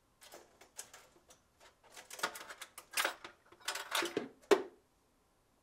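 Irregular clicks, rattles and scrapes of metal being handled: a refrigerator's freezer defrost heater being pushed and worked free of its clips against the evaporator coil.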